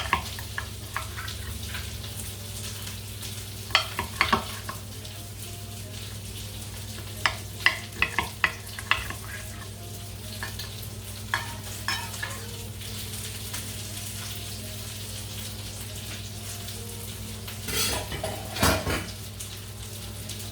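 Steady sizzle of food frying in a pan over a low hum. A metal utensil knocks and scrapes against the cookware in short clusters: a few seconds in, again around the middle, and near the end.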